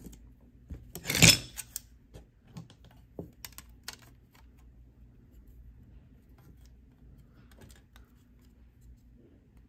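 Light clicks and taps of a jasper slab, plastic cabochon template and marker being handled while an oval is traced onto the stone, with one louder clatter about a second in.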